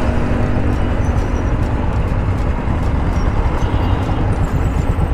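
Royal Enfield motorcycle engines running at low revs, a steady, dense low rumble with a pulsing beat.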